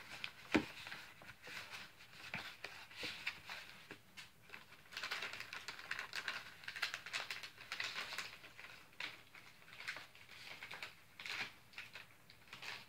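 Rustling, crinkling and scraping of MRE packaging handled by hand: the entree pouch in its cardboard sleeve being worked into the plastic flameless ration heater bag, with many small taps and crackles, busiest around the middle.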